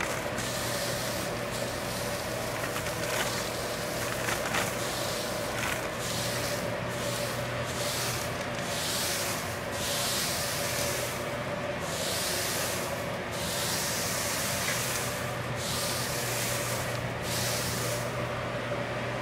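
Calendula flower heads rustling as they are poured and shaken into a bag: a few light ticks at first, then a run of swishes about once a second that stops shortly before the end. A steady hum runs underneath.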